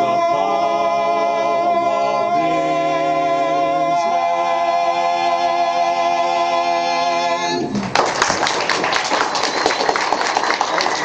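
Barbershop quartet of four men's voices singing unaccompanied, moving through a few chord changes and then holding a long final chord. About eight seconds in, the chord stops and audience applause starts.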